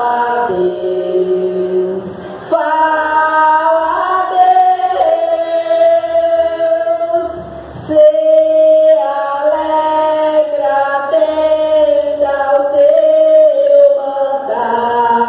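A woman singing a religious song unaccompanied into a handheld microphone, in long held notes, with short breaths between phrases about two and a half and eight seconds in.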